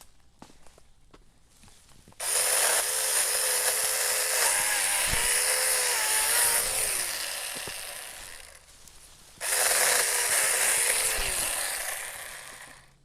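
A 24-volt cordless mini chainsaw's electric motor and chain running in two bursts, the first about six seconds and the second about three, cutting a tree limb. The pitch wavers and dips as the chain bites into the wood, and each burst tails off at the end.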